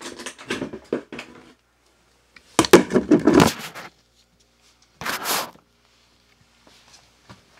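Rustling and scraping close to the microphone in three bursts, the loudest about three seconds in and lasting about a second, a shorter one near two-thirds through.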